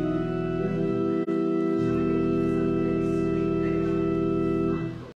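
Church organ playing held chords, changing chord a few times, then releasing and dying away near the end.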